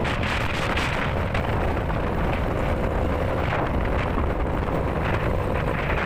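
Wind buffeting the camera microphone: a steady rumble and rush.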